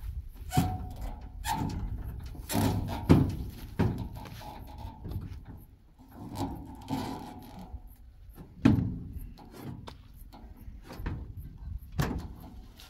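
A series of irregular knocks and thuds, the loudest about three seconds in and again near nine seconds.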